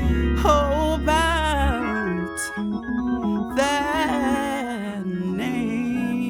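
Hammond-style gospel organ (Gospel Organ software, sampled from a Hammond A100) playing sustained chords and melodic runs, with a wavering vibrato on the upper notes. Deep bass notes drop out about two seconds in.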